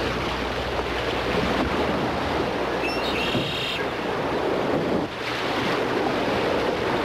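Whitewater rapid rushing steadily: the churning water of big standing waves, heard from a boat running through them.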